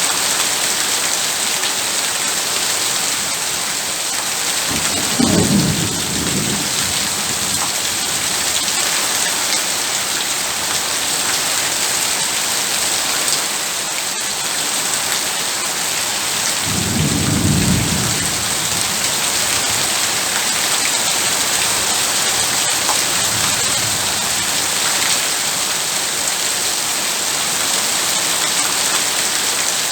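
Heavy rain falling steadily, with low rumbles of thunder about five seconds in and again near the middle, and a fainter rumble later.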